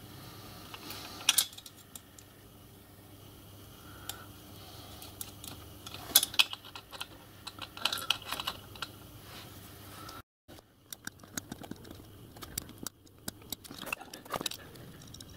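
Small steel parts of a miniature steam locomotive's pony truck clicking and tapping together as they are handled and fitted by hand: irregular light clicks in scattered clusters, with a brief break about two-thirds of the way through.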